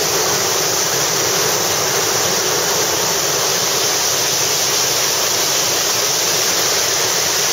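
Whitewater rapid pouring over a rock ledge: a loud, steady rushing of falling and churning river water, heard close.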